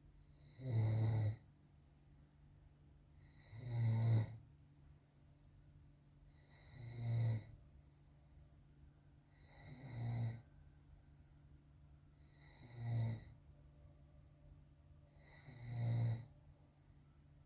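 A sleeping man snoring, six snores about three seconds apart, each lasting about a second.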